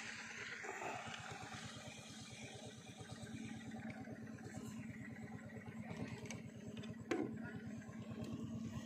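Small air-cooled petrol engine of a wooden river longboat running steadily with an even, rapid putter. A light knock comes about seven seconds in.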